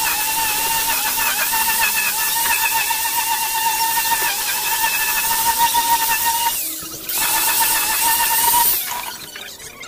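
Electric angle grinder with a sanding disc running against a mahogany tabletop, a steady high whine with a grinding rasp. It drops out briefly about two-thirds through and picks up again, then the motor is switched off and winds down near the end.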